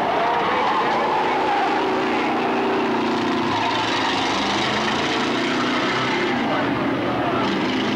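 Several race car engines running hard around a short oval, the engine note rising and falling as the cars pass through the turns.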